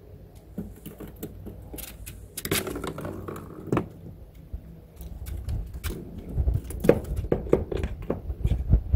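A cat moving about inside a large cardboard box: scattered taps, scrapes and rustles of its paws on the cardboard floor, busiest from about a third of the way in. A low rumble, likely wind on the microphone, rises in the second half.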